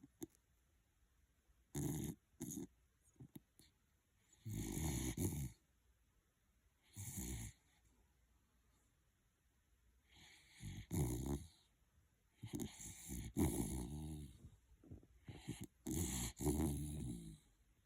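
Jack Russell terrier snoring in its sleep, in irregular bursts: some brief, some lasting a second or more, with quiet pauses between them.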